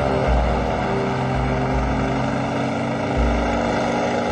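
Propeller aircraft engine running with a steady drone.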